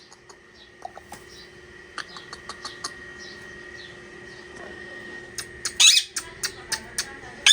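Pet parrot giving a run of short, sharp chirps, then a loud harsh squawk about six seconds in and another at the end.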